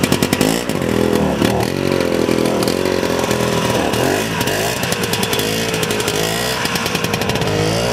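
1970 Scorpion snowmobile's two-stroke engine running just after starting, its revs rising and falling as the sled moves off.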